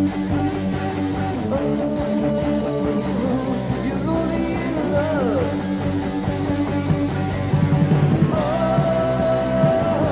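New Wave of British Heavy Metal song from a 1986 demo recording: electric guitars playing, with long held notes, one of them sliding down in pitch about five seconds in.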